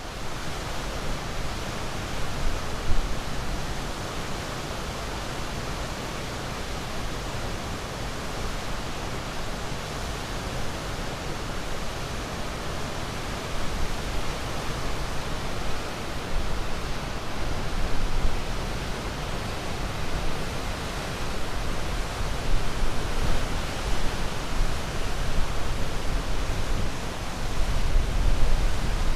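Ocean waves: a steady wash of surf with a deep rumble, swelling and easing gently every few seconds.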